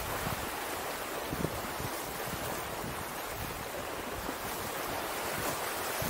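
Ocean surf washing steadily onto the shore, with a low, irregular rumble of wind on the microphone.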